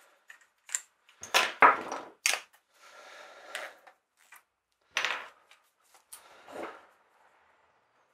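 Handling of a caulking gun loaded with a sealant tube at a workbench: a string of short knocks and clicks, the loudest cluster about a second and a half in, with more clicks about five and six and a half seconds in.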